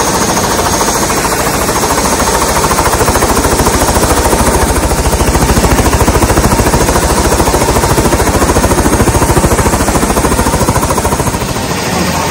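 Helicopter on the ground with its main rotor turning, heard close up: a rapid, even chop of the rotor blades with a steady engine whine under it. It gets a little quieter near the end.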